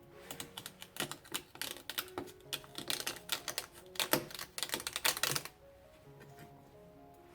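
Celery leaves being picked off the stalks by hand: rapid crisp snapping and crackling for about five seconds, stopping shortly before the end. Soft background music plays underneath.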